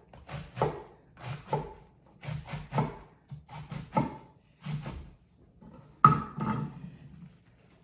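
Chef's knife slicing through a red cabbage and knocking on a wooden cutting board: a run of short chopping strokes, roughly one to two a second, with a louder knock about six seconds in.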